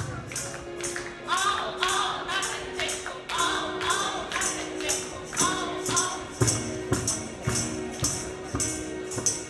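Music with a steady jingling tambourine beat, about three strikes a second, with voices singing over it at times.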